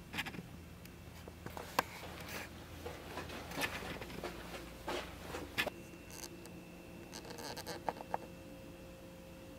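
Quiet room tone in a small room: a steady hum, broken by scattered soft rustles and several sharper clicks.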